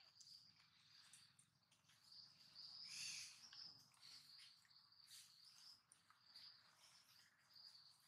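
Faint forest insect chorus: a steady, high-pitched pulsing trill that swells briefly about three seconds in.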